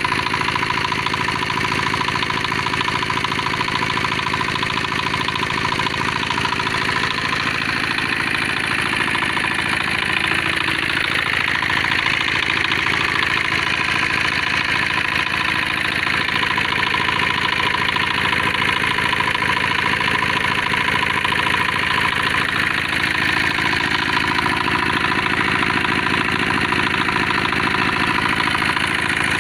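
Single-cylinder diesel stationary engine running steadily, belt-driving an Oshima plunger pump for a power sprayer, with a steady whine over the engine's rapid firing beat.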